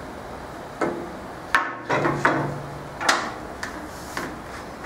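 A long pine board handled on a table saw's top, knocking and shifting against the table and fence as it is positioned, with a run of about seven sharp wooden knocks, some ringing briefly.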